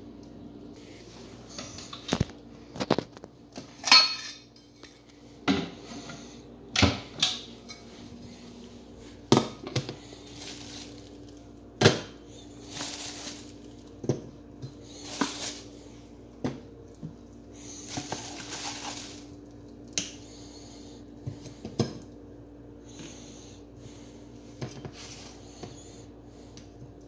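Frozen corn dogs knocking and clattering against a ceramic plate as they are set down and pushed into place: irregular sharp knocks, some in quick pairs, with a few short swishing rustles between them.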